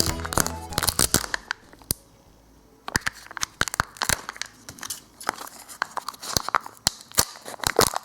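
Foil wrapper of a chocolate surprise egg crinkling and tearing as it is unwrapped: a quick run of sharp crackles, with a short pause about two seconds in.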